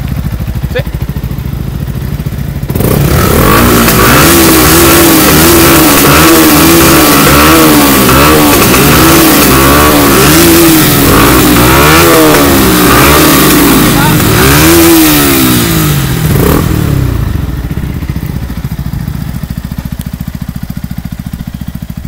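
Yamaha YZF-R125 single-cylinder four-stroke with an aftermarket Mivv GP exhaust, idling, then revved in repeated quick throttle blips for about fourteen seconds, the pitch rising and falling with each blip. It then settles back to idle.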